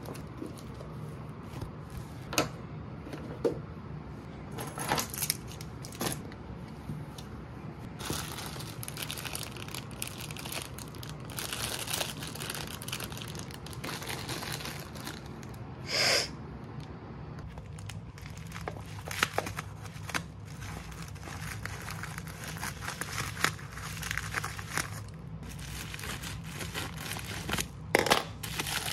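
Small objects handled and set down on a wooden desk, with scattered clicks and knocks and bits of plastic crinkling. Near the end, a plastic mailer bag crinkles and tears as it is ripped open.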